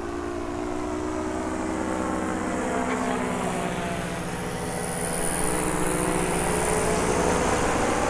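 Powered paraglider (paramotor) engine and caged propeller droning as it flies low overhead, the pitch sagging a little as it passes and the sound growing louder in the second half.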